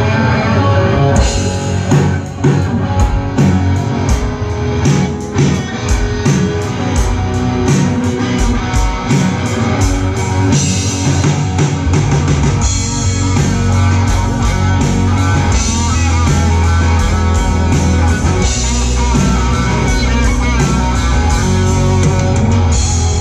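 Live rock band playing an instrumental passage on guitars, electric bass and drum kit. A steady drum beat comes in about a second in, and the low end of bass and kick drum grows heavier about halfway through.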